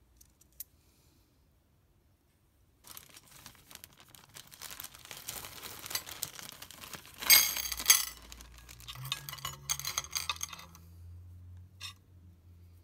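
Hand work on small metal parts: irregular scraping and rustling with many sharp clinks, loudest in two sharp knocks just past the middle, joined by a low hum for the last few seconds.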